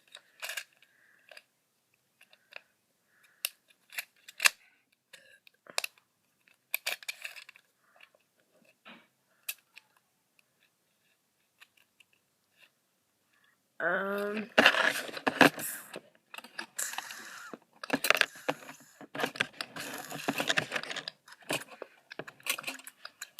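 Small objects being handled: scattered light clicks and taps, then, about two-thirds of the way through, a long stretch of dense rustling and scraping.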